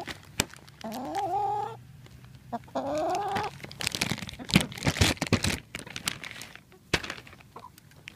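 Hens calling, two drawn-out rising squawks in the first few seconds, followed by a clear plastic bag crinkling sharply as they peck at it for the crickets inside.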